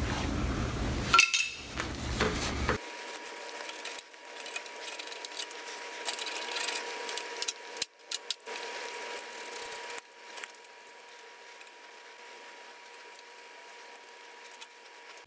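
Rag rubbing and small metallic clinks and knocks from hands cleaning grime off a motorcycle engine and frame. A low rumble under the first few seconds cuts off suddenly, leaving a quieter stretch with a few sharp clicks and a faint steady whine.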